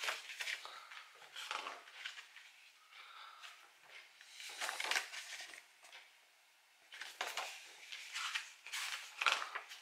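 Paper and packaging rustling and crinkling as items are handled and leafed through, in irregular short bursts with a brief lull a little past halfway.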